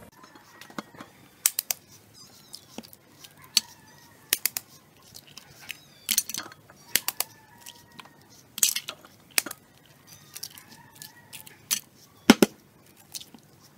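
Raw eggs being cracked by hand into a plastic mixing bowl, one after another: sharp, irregular shell cracks and clicks, with the empty shells set down on a plate.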